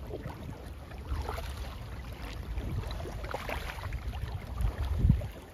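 Paddle strokes splashing and dripping as an inflatable packraft is paddled through floodwater, over a steady low rumble, with the loudest splash about five seconds in.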